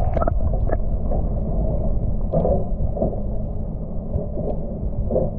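A steady, muffled low rumble and hum, with a few sharp clicks in the first second.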